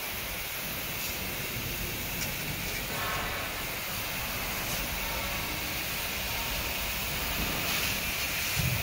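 Fine water spray from a hose nozzle hissing steadily as it wets the soil, over a steady low rumble.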